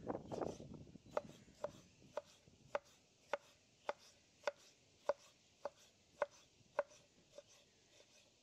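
A knife slicing a tomato on a wooden cutting board, the blade knocking the board in a steady rhythm of a little under two strokes a second, after a rougher stretch of cutting in the first second.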